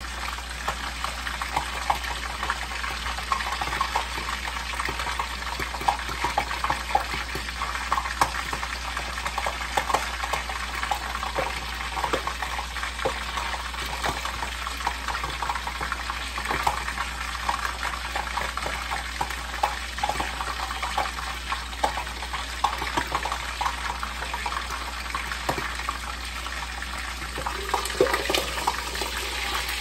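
Milkfish frying in hot oil in a pan covered with a glass lid: a steady sizzle with frequent spitting crackles and pops.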